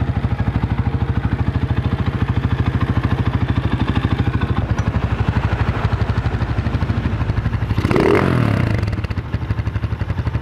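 Rusi Classic 250 motorcycle's four-stroke engine idling on a newly fitted 26 mm flat-slide carburetor, with the idle set a little high. About eight seconds in it revs briefly once and falls back to idle.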